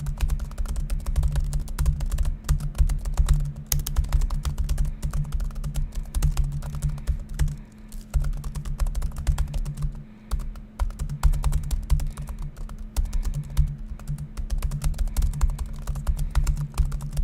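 Fast touch-typing on the Asus Zenbook Flip S laptop's shallow 1 mm-travel keyboard, at about 89 words per minute: a dense run of quick key clicks with short pauses about eight and ten seconds in, over a steady low hum.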